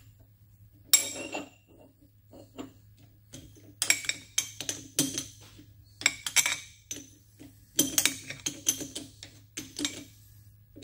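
Sharp metallic clinks and knocks, about a dozen, scattered and irregular, as a steel shaft blank is seated in a dividing head's chuck against the tailstock centre and the chuck key is handled. A faint steady low hum runs underneath.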